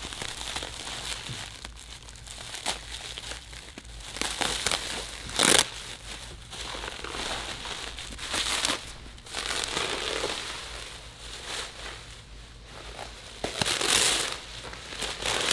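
Bubble wrap crinkling and rustling as it is cut open and pulled off a packed seat, with several louder crackling bursts, the loudest about five and a half seconds in.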